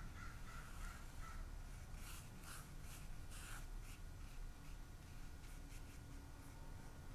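Faint soft swishes of a small paintbrush laying acrylic paint onto smooth watercolor paper. A few short, faint bird calls come in the first second.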